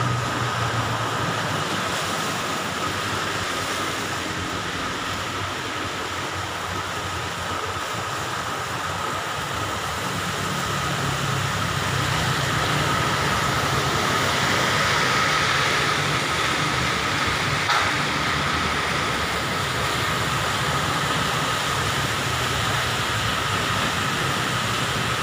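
Steady hiss of heavy rain with a low engine-like rumble underneath, and a single sharp click about eighteen seconds in.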